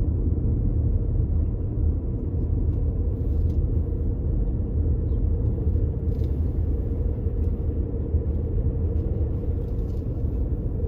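Steady road and engine rumble of a moving car, heard from inside the cabin, with a faint even hum running through it.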